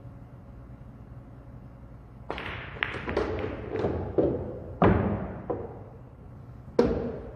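Pool balls being shot on a Diamond pool table: a quick run of sharp clicks and knocks as the cue ball strikes and balls collide with each other and hit the cushions, from about two seconds in for about three seconds, then one more sharp knock near the end.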